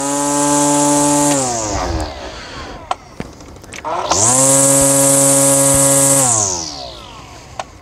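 Hart 40-volt cordless string trimmer triggered twice. Each time the electric motor whines up quickly to one steady speed with a high hiss, holds it for a second and a half to two seconds, then spins down. It is a single-speed trimmer running on a nearly dead battery, and its speed seems pretty slow.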